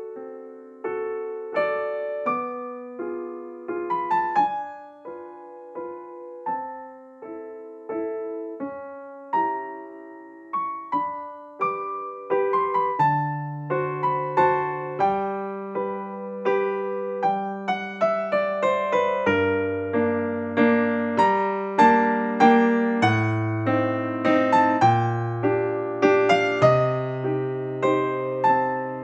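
Background piano music: a gentle melody of single struck notes that fade away, with lower bass notes coming in about halfway through.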